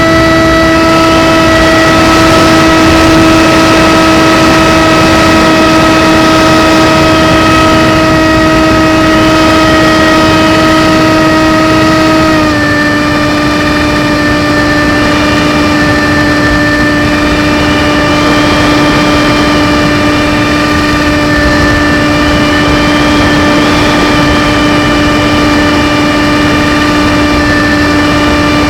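RC plane's motor and propeller running at a steady high-pitched hum, already spun up to speed as the sound begins. About twelve seconds in, the pitch steps down a little as the throttle is eased, and it holds there.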